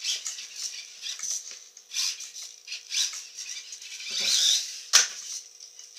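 Losi Micro DT micro RC truck's small brushed electric motor and gears whirring in short, high-pitched bursts as it is throttled on and off across a tiled floor, with its tyres and chassis rattling. A single sharp knock about five seconds in.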